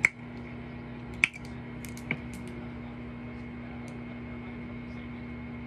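Steady low electrical hum, with three short sharp clicks or taps in the first couple of seconds.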